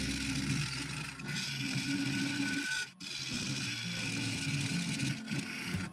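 A turning tool cutting a spinning epoxy resin bowl blank on a wood lathe: a steady scraping as ribbons of resin peel off. It breaks off briefly about three seconds in.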